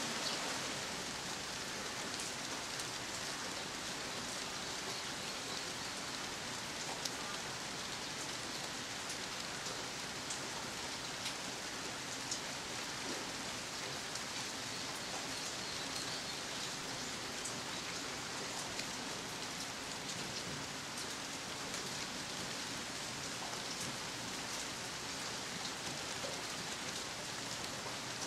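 Steady rain falling on ginkgo tree leaves, with scattered sharper taps of single drops.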